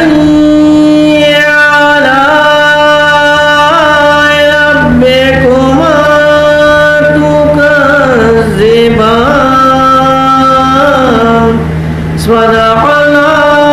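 A man's solo voice, with no instruments, chanting a melodic religious recitation into a microphone in long held notes that bend and slide in pitch. He breaks off briefly for breath about twelve seconds in, then goes on. A steady low hum runs underneath.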